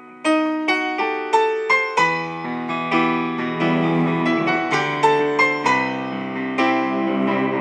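Piano music: notes and chords struck one after another at about three a second, each ringing and fading, coming in strongly just after the start.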